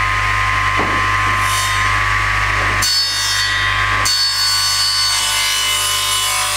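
Mitre saw running, its spinning blade cutting through a wooden skirting board, a steady motor whine over the cutting noise. The sound changes abruptly about three seconds in and again about a second later.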